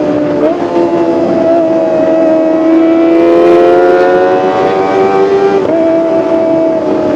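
Kawasaki ZX-25R's 249 cc inline-four engine and exhaust running at high revs, a loud, high-pitched multi-tone wail whose pitch climbs slowly, with abrupt pitch changes about half a second in and again near six seconds in.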